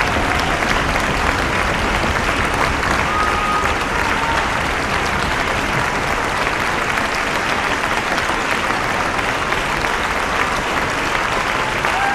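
Large concert-hall audience giving a standing ovation: dense, steady applause of many hands clapping.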